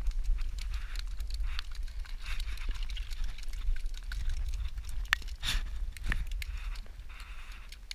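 Freshly caught mackerel flapping on wet concrete, a scattering of quick taps and slaps, over wind rumbling on the microphone.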